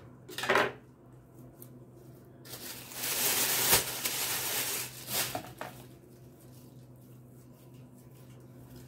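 A plastic bag crinkling and rustling for about two and a half seconds as a piece of dough is wrapped in it, after a short soft knock about half a second in. A faint steady hum runs underneath.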